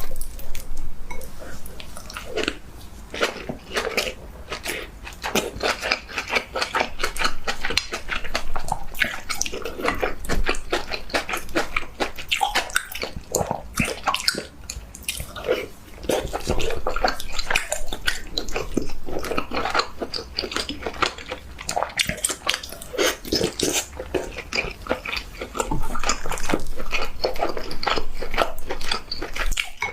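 Close-miked eating: continuous chewing and biting with dense wet clicks and crackles, mouthful after mouthful.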